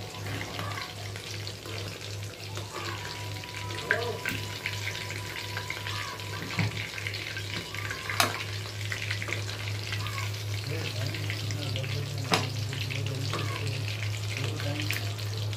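Fish pieces deep-frying in hot oil, a steady crackling sizzle, with three sharp clicks of the spatula and metal tongs against the pan as the fried pieces are turned and lifted out.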